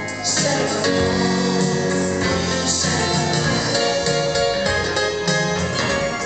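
Pop song backing track with two girls singing a duet over it into microphones.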